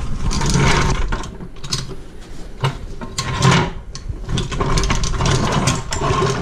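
Steel hydraulic floor jack being worked under the car, its handle and frame clanking and clicking in repeated strokes about once a second.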